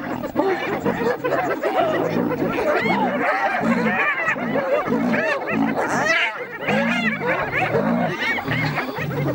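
A pack of spotted hyenas giggling and whooping in many overlapping calls that rise and fall in pitch, with deep growls underneath, while they mob a lion in a fight.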